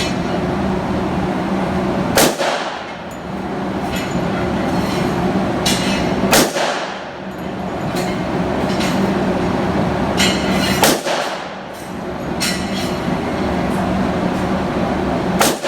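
Handgun fired four times at a slow, even pace, roughly four seconds between shots, each shot a sharp crack with a short echo, over steady rushing background noise.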